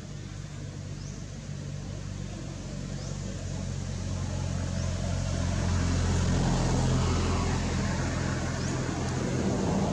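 A motor vehicle engine running nearby: a steady low hum that grows louder from about four seconds in and stays loud.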